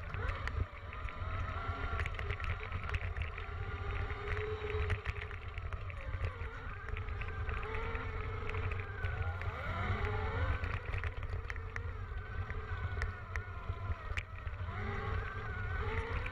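Electric dirt bike motor whining, its pitch rising and falling with speed, over heavy wind rumble on the microphone, with frequent small knocks as the bike rides over the rough dirt track.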